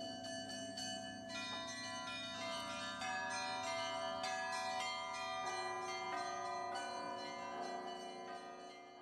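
Bells ringing a quick run of struck notes over a held low drone, as background music, fading near the end.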